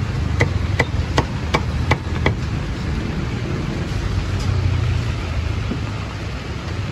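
Six sharp knocks in a quick, even rhythm, about three a second, starting about half a second in and stopping a little over two seconds in, over a steady low rumble.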